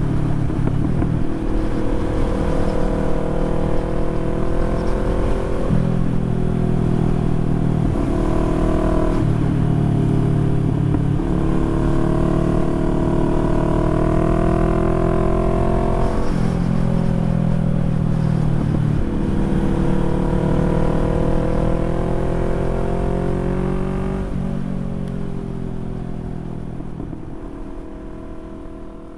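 Motorcycle engine pulling through the gears: its pitch climbs in each gear and drops back at each shift, several shifts in a row. The sound fades out over the last few seconds.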